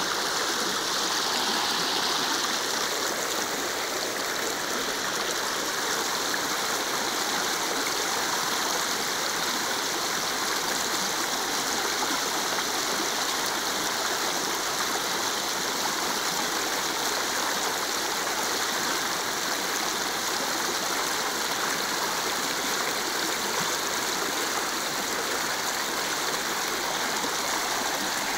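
Small river's current flowing steadily over a shallow stretch, a continuous rushing and rippling of water.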